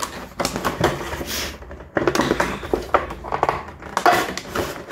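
Cardboard box and clear plastic sleeve being handled: irregular rustling, scraping and light knocks as a camera box is slid out of its packaging.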